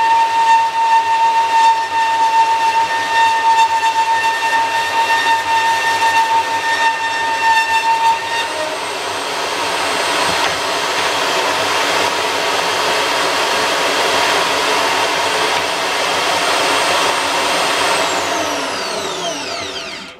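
Makita 2107F portable bandsaw with its stock 18-tooth-per-inch blade cutting through a thin workpiece with a steady high-pitched whine. After about eight and a half seconds the cut ends and the saw runs free, then near the end it is switched off and winds down with a falling whine.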